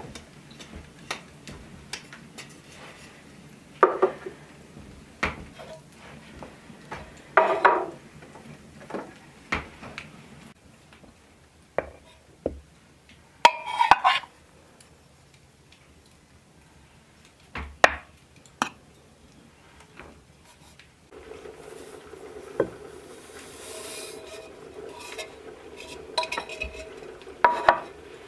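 A metal cup and kitchen pottery clinking and knocking as flour is scooped from a crock into an earthenware mixing bowl. The sound is a scatter of small clicks with a few louder ringing knocks. About two-thirds of the way through, a steady faint hum comes in beneath the clinks.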